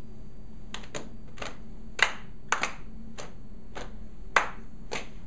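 A small group clapping hands together in a steady rhythm, about two claps a second, starting a little under a second in. The claps are slightly ragged, some doubled, and they keep the beat of a counting game.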